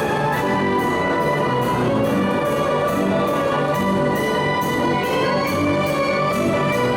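Carousel band organ playing a march-like tune with brass-like pipes over a steady drum beat.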